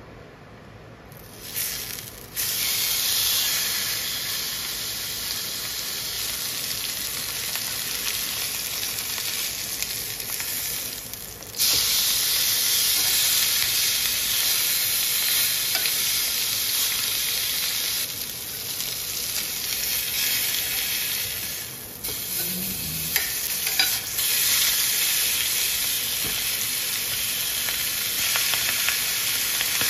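Rib eye steak sizzling in hot oil in a cast iron skillet. The sizzle starts about two seconds in as the meat goes into the pan and jumps louder near the middle when the steak is flipped. A few light clicks come about three-quarters of the way through.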